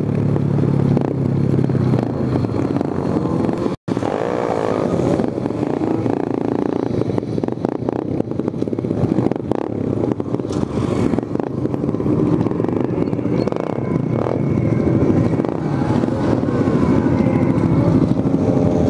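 Engines of a group of motorcycles running in traffic, with a brief dropout to silence about four seconds in.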